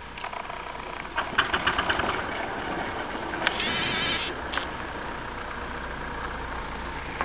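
4-inch scale McLaren steam traction engine running as it is driven: a quick run of sharp exhaust chuffs about a second in, then a sharp click and a short burst of steam hiss, and a steady running sound after that.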